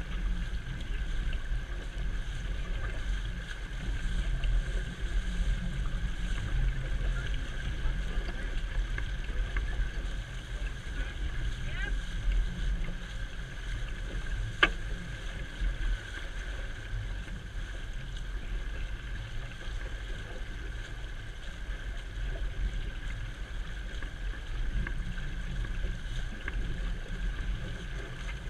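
Wind buffeting the microphone with the steady rush of water along the hull and wake of a small sailboat under way, its outboard tilted up out of the water. A single sharp click about halfway through.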